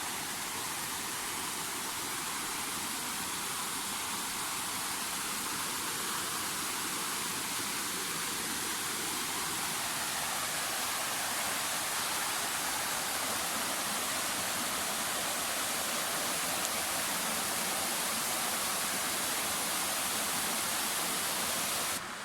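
Waterfall rushing: a steady, full hiss of falling water that swells slightly and drops off suddenly near the end.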